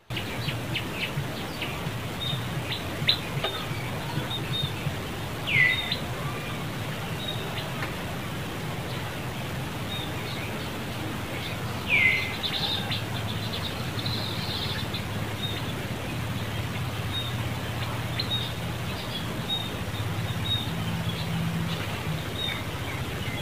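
Birds chirping, short high calls again and again, with two louder calls sliding downward about five and twelve seconds in, over a steady low hum.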